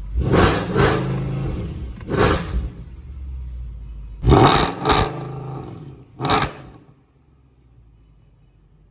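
Mercedes-AMG C63 V8 blipped repeatedly while parked, about six short revs over a steady low idle, running through a full exhaust with resonator fitted behind the headers. The sound drops away about seven seconds in.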